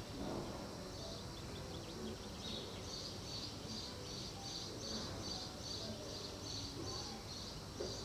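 Outdoor ambience: a steady low rumble of wind and background noise, with a high, thin chirp repeated evenly about three times a second starting a few seconds in.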